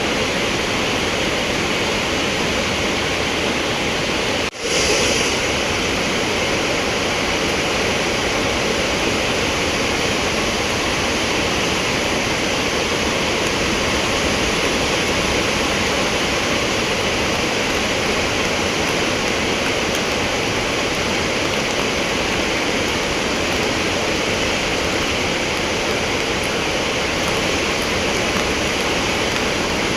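Swollen Chenab River in flood, fast water rushing steadily, with a momentary dropout about four and a half seconds in.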